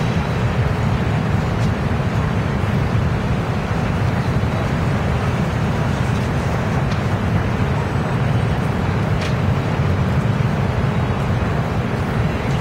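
Steady city street noise: a constant low traffic rumble, with a few faint clicks.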